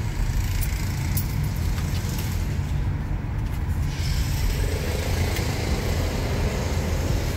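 Steady low rumble of engine and road noise inside the cabin of a car driving through town traffic.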